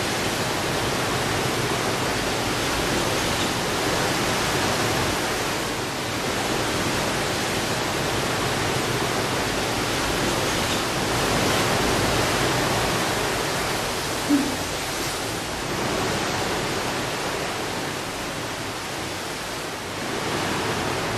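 Steady rushing noise of wind and distant sea, with a fluttering low rumble, and one brief faint blip about two-thirds of the way through.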